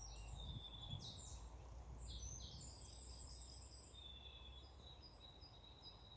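Faint birdsong: several birds giving quick high chirps and short trills, over a low steady rumble.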